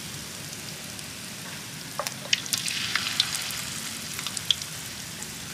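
Batter-coated linh fish frying in hot oil: a steady sizzle with sharp popping crackles, which get more frequent about two seconds in.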